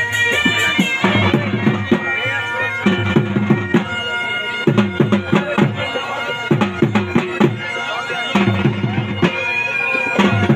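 Live jhumar folk music: a wind instrument holds a sustained melody over a rhythm of repeated drum strokes.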